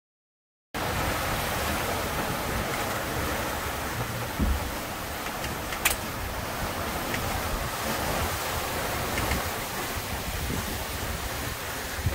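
Wind and rushing water aboard an F31 trimaran sailing fast in a strong breeze, a steady noise that starts after a moment of silence. There is a low thump about four and a half seconds in and a sharp click or knock about six seconds in.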